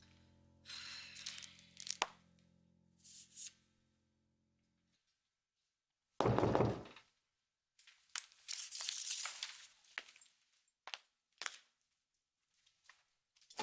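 The last held notes of soap-opera transition music fade out. Then comes a single heavy thump and a stretch of rattling and clicking, the sound of a door with a loose doorknob being opened.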